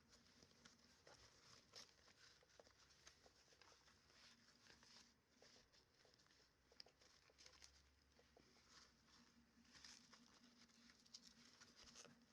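Faint scattered small clicks and rustles at an irregular pace.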